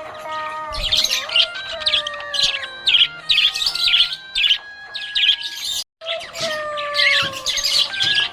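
Budgerigars chirping rapidly and continuously over background music with a sustained melody. The sound cuts out abruptly for a moment about six seconds in.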